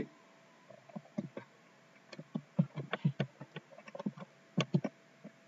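Typing on a computer keyboard: irregular, quick, faint keystroke clicks as values are keyed into a form.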